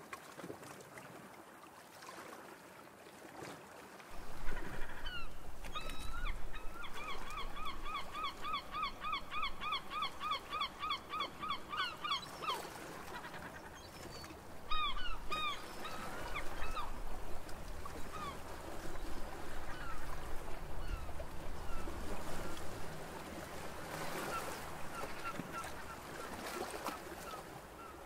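A bird calling in a rapid run of honking notes, about four a second for several seconds, then a short burst and a fainter run later. A low rumble runs underneath from about four seconds in.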